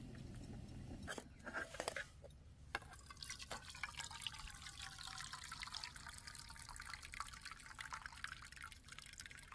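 A thin, faint stream of hot water trickles from a camping pot through its strainer lid into a metal frying pan as cooked noodles are drained. A few clinks of the pot and lid come in the first couple of seconds.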